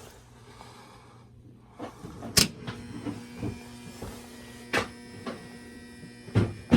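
Steady electrical hum from a gas steam boiler that will not fire, with a second buzzing tone joining about two seconds in, and a few sharp clicks and knocks.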